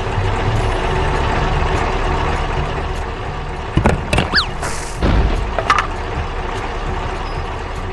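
Animated sound effects of a heavy truck engine running steadily, with crates thudding and crashing down several times from about four seconds in, alongside short whistling glides.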